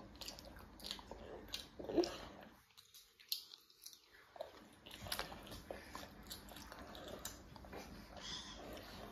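A young child chewing a mouthful of food: a run of soft, wet mouth clicks and smacks, with a brief pause about three seconds in.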